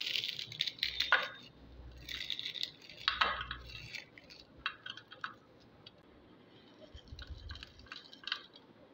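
Crisp thattu vadai rice crackers crunching and crackling as they are crushed by hand, pieces dropping into a glass bowl, with the loudest snaps about one and three seconds in. Near the end, a run of light clicks as small crunchy pieces land in the bowl.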